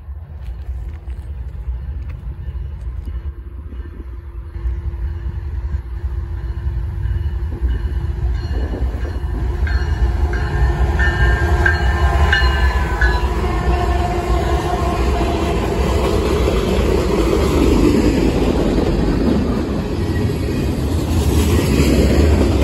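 Norfolk Southern freight train passing close by: the diesel locomotives grow louder over the first ten seconds or so, then the rumble of a long string of hopper cars rolling past continues steadily.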